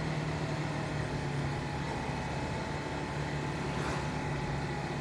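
Honda CBR150R's single-cylinder four-stroke engine running at a steady cruise, with wind and road noise from riding.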